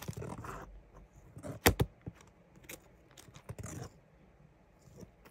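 Handling of plastic-bagged comic books being flipped through in a storage box: soft rustles and scattered clicks, with one sharp knock about a second and a half in.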